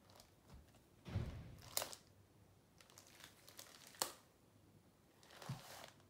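Short rustles and crinkles of plastic sheeting as hands handle a paint-covered canvas on a cake spinner, with a sharp click about four seconds in.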